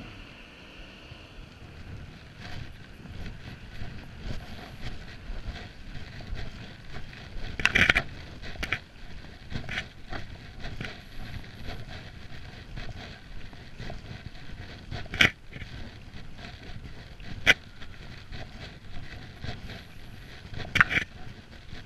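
Footsteps walking on wet stone paving and cobblestones, with a low rumble on the microphone and a few sharper knocks among many small irregular clicks.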